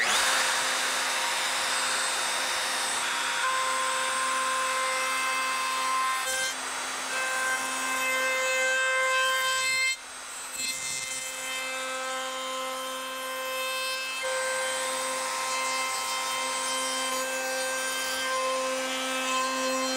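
DeWalt DW621 plunge router running at speed with a steady whine, its bearing-guided ogee bit cutting a profile along the edge of a wooden frame.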